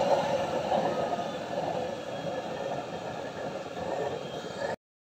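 Waste-oil stove burner running on high with a blue flame: a steady rushing noise that eases a little over the first two seconds and cuts off suddenly just before the end. The flame is turned up to burn off hardened carbon inside the burner.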